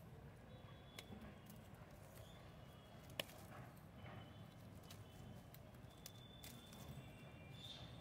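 Near silence broken by a few faint clicks and one sharper snip about three seconds in: hand pruning shears (secateurs) cutting rose stems.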